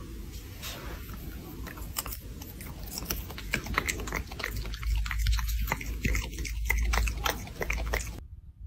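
Raccoon chewing food held in its paws, a quick irregular run of small crisp crunches that stops near the end.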